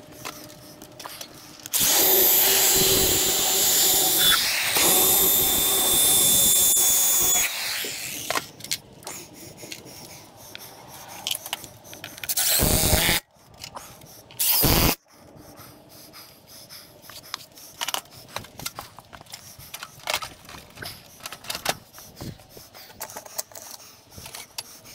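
Cordless drill driving screws into a wooden board: one long run of about six seconds, then two short bursts in the middle, followed by scattered light clicks and knocks of handling.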